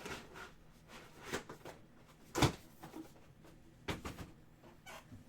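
A few separate knocks and clicks of objects being handled and set down, the loudest about two and a half seconds in.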